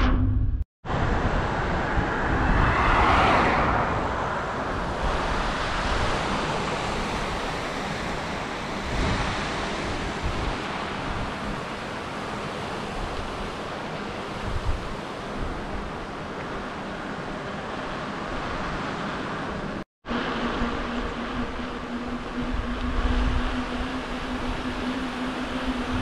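Steady rushing wind and road noise from a bicycle-mounted action camera on the move, swelling louder about two to four seconds in. The sound cuts out for a moment twice, just under a second in and about twenty seconds in, and after the second break a steady low hum runs under the noise.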